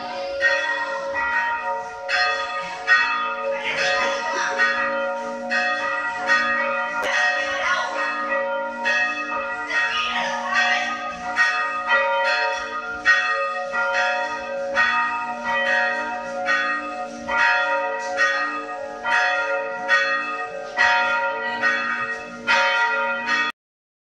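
Two church bells rung by hand from ropes, clanging in a quick, uneven peal of overlapping strikes about twice a second over their long ringing tones. The sound cuts off suddenly near the end.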